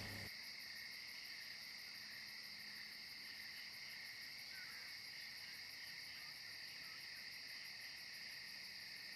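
Faint, steady chorus of crickets, a continuous high-pitched trilling with no breaks.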